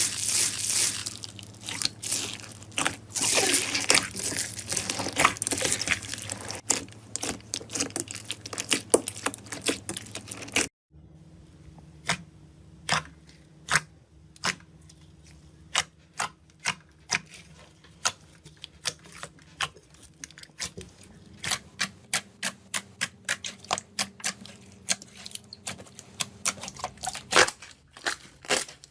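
Slime being squeezed and poked by hand, making a dense run of sticky clicks and pops. About ten seconds in the sound cuts to a new clip of sharper, more separate pops.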